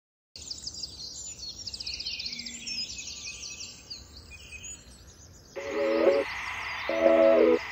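Birds chirping and trilling in high, busy song. From about five and a half seconds in, a louder, lower pitched call of short repeated notes, about a second apart, joins over a steady hiss.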